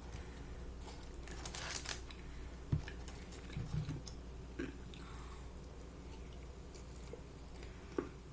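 A person chewing a bite of crispy fried chicken close to the microphone, with crunching bursts about a second in and then scattered soft chewing clicks.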